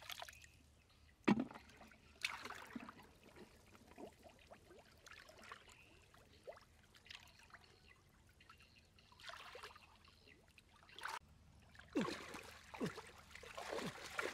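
Hands groping and stirring in shallow muddy water: irregular trickling and sloshing, with a sharp splash a little over a second in and busier splashing near the end.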